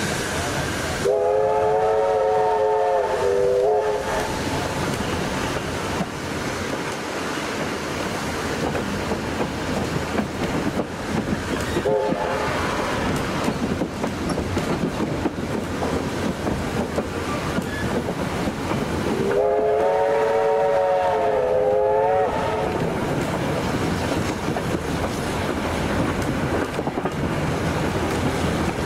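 Steam locomotive whistle sounding two long blasts about eighteen seconds apart, each a chord that sags in pitch as it cuts off. Underneath is the steady running noise of the train on the rails, with some clickety-clack.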